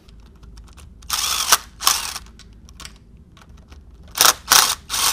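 Cordless power driver on a wobble extension running in short bursts to spin off nuts on the lower engine mount, two bursts about a second in and a quick cluster near the end.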